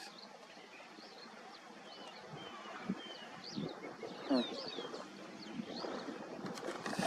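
Birds chirping and whistling in short, scattered calls over a faint outdoor hiss, with a louder, lower call just after four seconds in.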